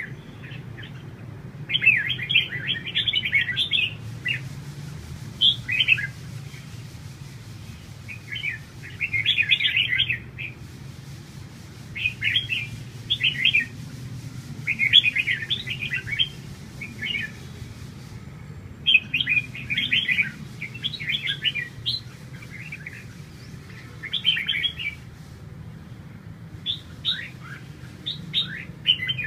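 Caged red-whiskered bulbuls singing: short phrases of chirping, warbled notes, one every second or two with brief gaps, over a steady low hum.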